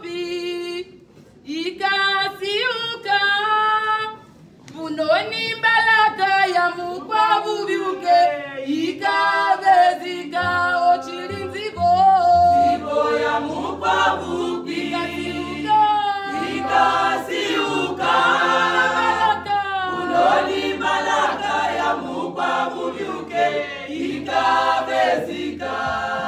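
Women's church choir singing in parts. The phrases break off briefly twice in the first few seconds, then the singing runs on without a pause. A low steady hum sits underneath from about ten seconds in.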